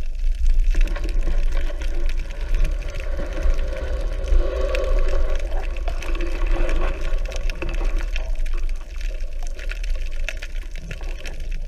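Underwater sound picked up by an action camera in its housing: a steady low rumble of moving water with scattered clicks and crackles, and a wavering hum in the middle stretch.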